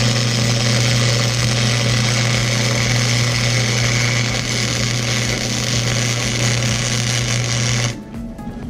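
MIG welder laying a continuous bead on a cracked exhaust manifold: a steady hissing crackle over a low hum. It is turned down to a slow wire feed for extra heat to burn back into an old weld, and it cuts off sharply near the end.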